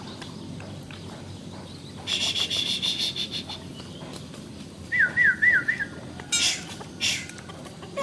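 Asian pied starling (jalak suren) calling: a rapid harsh rattling chatter about two seconds in, a short run of quick whistled notes around five seconds, then two short harsh screeches near the end.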